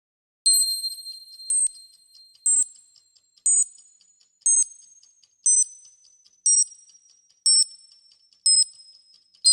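Electronic countdown-clock sound effect: a sharp, high-pitched bell-like beep once a second, each trailing off in fast light ticking, starting about half a second in. The pitch of the beeps steps lower with each second.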